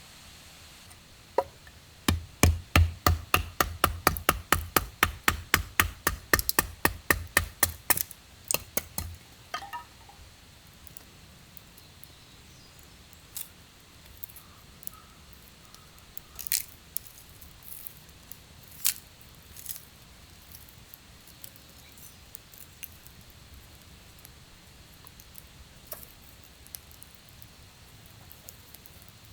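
A quick series of sharp knocks with a dull thud, about four a second for some seven seconds, then scattered crackles and pops like a campfire burning.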